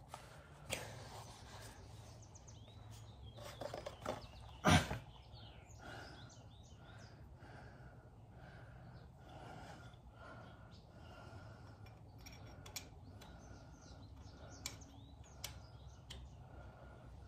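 Small birds chirping outside over a steady low hum, with a few sharp clicks and one louder knock about five seconds in as metal parts and bolts are handled.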